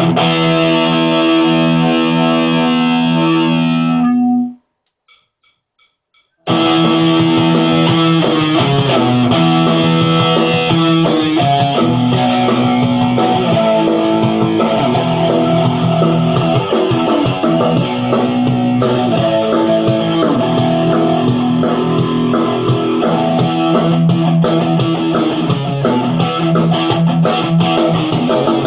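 Electric guitar played through a Line 6 Spider V30 modelling amp on a rock tone. A held chord rings for about four seconds and then stops. After a short gap with four faint ticks, continuous chord playing starts and carries on.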